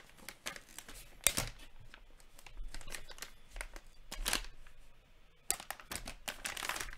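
Trading card pack wrapper being torn open and crinkled by hand, with a sharp snap about a second in and louder crinkling near the end.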